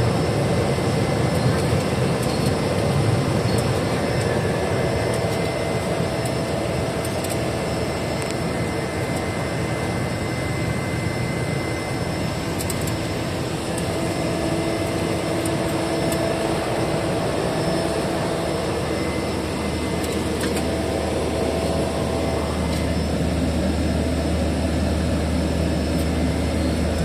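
Small propeller airliner's engine and airflow droning steadily, heard from inside the passenger cabin in flight; the low engine tone shifts slightly about two-thirds of the way through.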